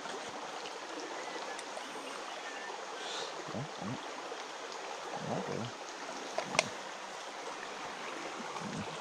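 Shallow rocky stream flowing steadily over stones, with a sharp click about two-thirds of the way through.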